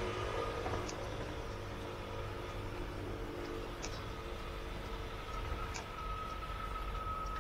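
City street ambience with the steady hum of motor vehicles running nearby, and a thin steady whine that grows stronger in the second half.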